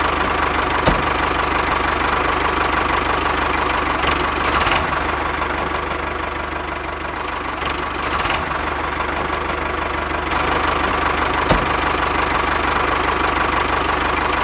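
Steady engine running sound with a low knock as the miniature toy tractor drives along pulling its trolley.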